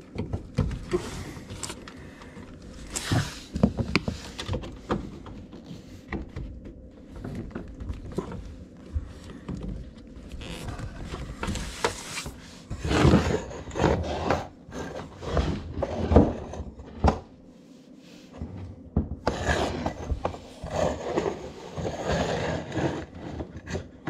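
Handling noise of fingers and a screwdriver working at a plastic Romex cable connector in a dishwasher's sheet-metal junction-box bracket: irregular clicks, knocks and scrapes, busiest in the second half, as the tabs are pushed in to free it.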